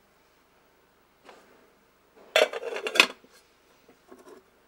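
An aluminium lid put onto an aluminium cooking pot: a short clatter of metal on metal about two and a half seconds in, ending in a sharp clank.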